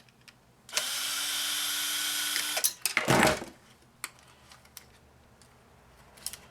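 Cordless drill/driver running steadily for about two seconds, backing out a screw, followed by a short clatter of parts. A few light clicks come after.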